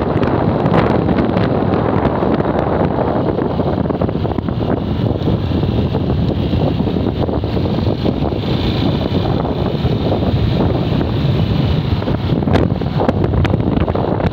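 Wind buffeting the microphone on a moving motorcycle, mixed with the motorcycle's steady running noise.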